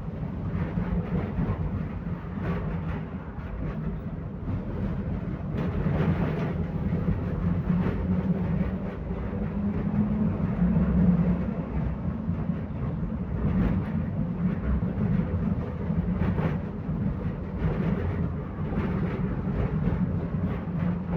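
Belkommunmash BKM 60102 tram under way, heard from inside: a steady rumble of wheels on the rails with a low hum, and a few sharp knocks from the track now and then.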